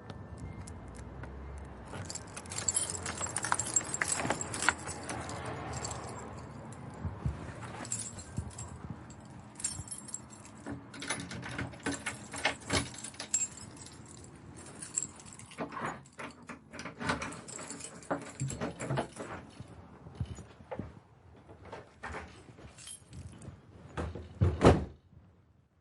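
A door being unlocked and opened, with keys jangling and many sharp metallic clicks and rattles from the lock and handle. A single loud knock comes near the end.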